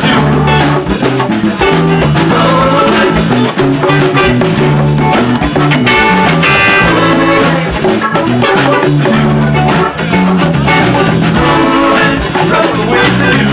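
Live band playing loud, upbeat music: a drum kit keeping the beat under a moving bass line, with other instruments on top.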